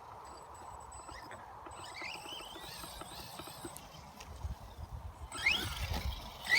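JLB Cheetah RC buggy's brushless electric motor whining up in pitch as the car accelerates in short bursts: faintly about two seconds in, then twice louder near the end, with a low rumble under the last two.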